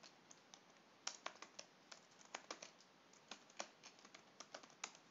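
Faint typing on a computer keyboard: a run of irregular, quick key clicks.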